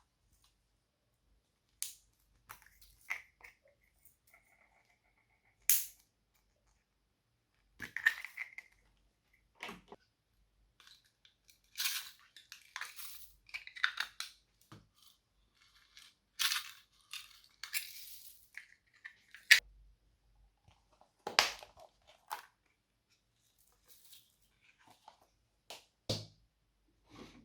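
Slime being squished and mixed by hand, giving irregular sharp pops and crunchy crackles with quiet gaps between them.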